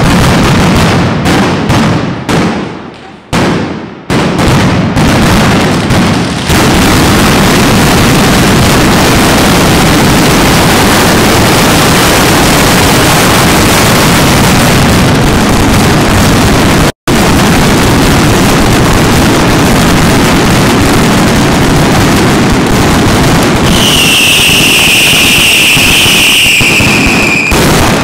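Mascletà firecracker barrage: strings of masclets go off as separate loud bangs for the first few seconds, then merge into a continuous, deafening rattle of explosions. The sound breaks off for an instant about seventeen seconds in, and near the end a loud whistle, falling slightly in pitch, rises above the barrage.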